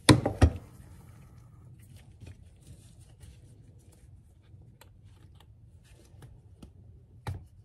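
Two sharp knocks at the start, then quiet clicks of metal parts being handled, and a mallet knock near the end as a tight-fitting kingpin is tapped into a VW beam-axle spindle.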